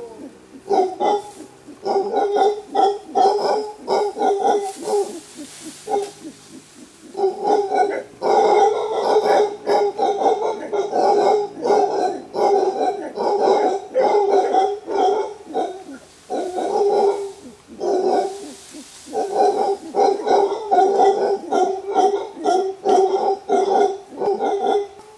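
Mantled howler monkey roaring: a long run of deep, guttural barks repeated two or three times a second, with a few short pauses, the warning roar of an alpha male.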